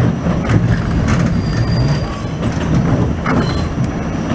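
New York City subway train running on the track: a steady, loud rumble of steel wheels on rails, with a couple of brief, faint, high wheel squeals.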